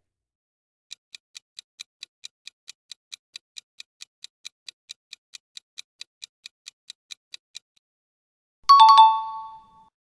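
Countdown-timer sound effect: clock-like ticking at about four ticks a second for six to seven seconds, then, about a second after it stops, a ringing two-tone chime marking time up and the answer reveal.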